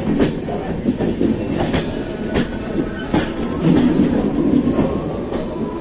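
Brahmaputra Mail Express coaches rolling along the track, heard from the open doorway: a steady wheel rumble with irregular clacks from the rails and joints.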